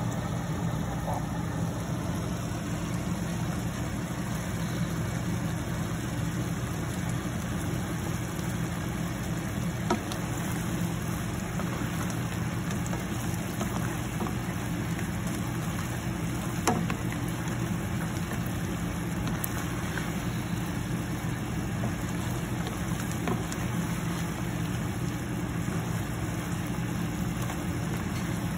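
Steady low hum of a running motor, with two sharp knocks of a spatula against the pan, about ten and seventeen seconds in.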